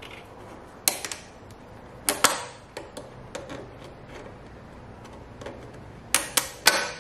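Sharp metallic clicks and clacks of hand tools on hose clamps as a coolant line is worked off the EGR cooler pipe. There is a single click about a second in, a couple around two seconds, and a quick run of three or four near the end.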